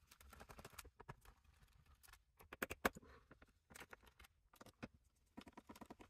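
Faint, irregular clicks and light scraping of a Phillips screwdriver working the captive screws on a laptop's metal bottom cover.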